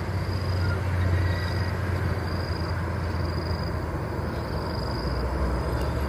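Steady hum of road traffic, cars and motorcycles running along a multi-lane road, with no sudden sounds standing out. A high insect chirp repeats evenly, about once a second, over it.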